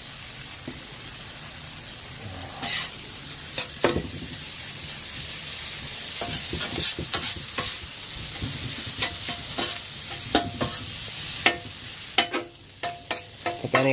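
Potatoes, cheese and bacon sizzling on a Blackstone 17-inch steel flat-top griddle while a metal spatula chops and scrapes through them, clicking and clattering against the plate. The clicks come more often from about six seconds in.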